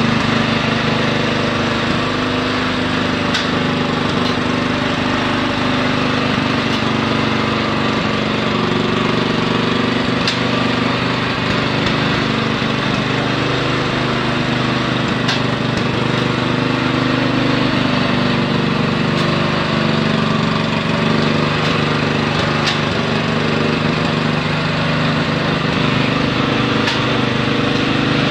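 Machinery running steadily with a pitched engine-like hum, and faint sharp clicks every few seconds.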